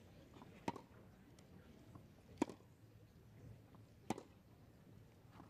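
Tennis ball struck by rackets in a rally: three sharp pocks, about a second and three-quarters apart.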